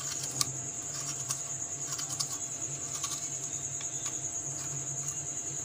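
Faint scattered clicks and scrapes of a spoon and fingers scooping the seeds out of a peeled round gourd (tinda), the clearest about half a second in, over a steady high-pitched whine.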